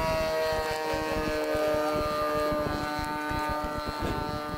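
RC model airplane engine heard in flight, its note sliding slowly lower in pitch and fading as the plane moves away. Wind buffets the microphone throughout.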